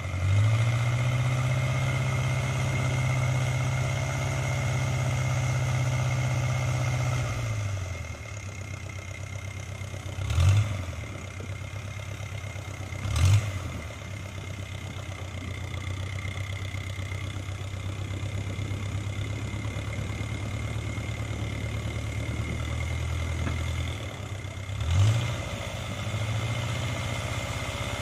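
Long-tail boat engine running steadily, easing to a lower speed about seven seconds in. Three short, loud bursts cut through it later on.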